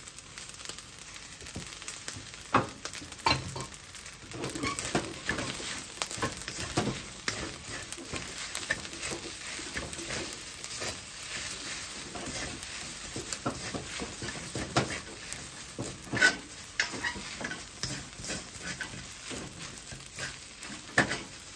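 Fried rice sizzling in a hot wok while a spatula stirs and turns it, with scattered sharp knocks and scrapes of the spatula against the pan.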